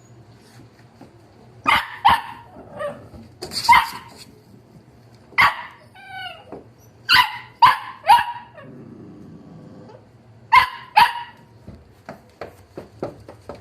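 Wire-haired dachshund puppies barking in short, high yaps, several in quick pairs, with a falling whine about six seconds in.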